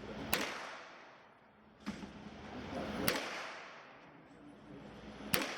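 Four sharp gunshots at a shooting range, unevenly spaced: one just after the start, one just before two seconds in, one about three seconds in and one near the end.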